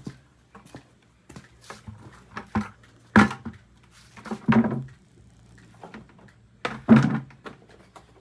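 A series of knocks and thuds from things being handled and set down in a small room. The loudest come about three seconds in, around four and a half seconds in and about seven seconds in, with lighter knocks between.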